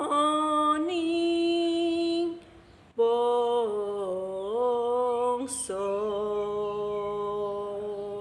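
A woman singing tembang macapat Asmaradana in slendro sanga, unaccompanied, drawing out long held notes with slow ornamental bends. She pauses for breath about two seconds in, then sings one long melismatic phrase that closes the song right at the end.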